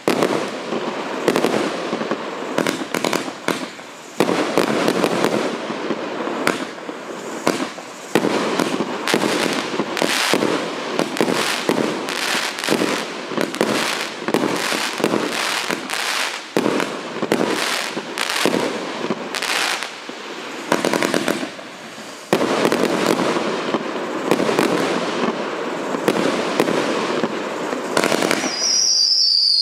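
A "Sirius" fireworks battery (salute cake) firing shot after shot in quick succession, with dense bangs and crackling that ease off briefly about 4 and 22 seconds in. Near the end a high whistle falls in pitch over the bangs.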